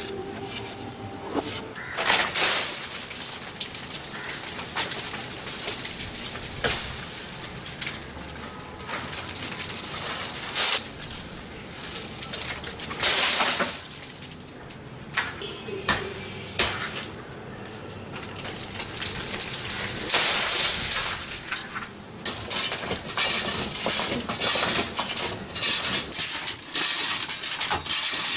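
A coconut climber working in a palm crown: dry coconut fronds rustle and swish at intervals. In the last several seconds come quick runs of sharp knocks and metallic clinks from the steel climbing device on the trunk.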